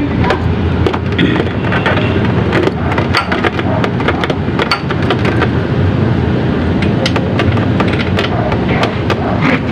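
Repeated small metal clicks and light knocks as a 28mm Koso carburetor is pushed onto its intake and its throttle cable fitted. Under them runs a steady loud rumble of background noise.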